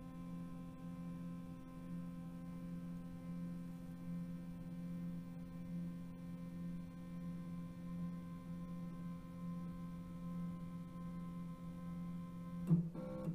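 Stepper motors of a CNC-converted Grizzly G0704 benchtop mill driving the table in a homing move: a steady, even whine with several pitches. It stops with a short click near the end, as homing completes.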